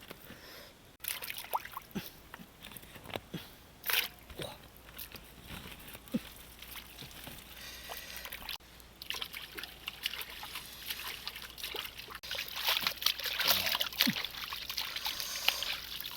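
Water sloshing and trickling, with irregular small splashes and knocks as something is handled in it.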